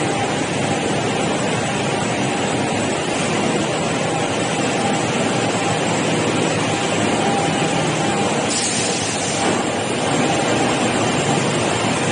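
Steady running noise of woodworking production machinery, a continuous hum with a faint high whine, and a brief hiss about nine seconds in.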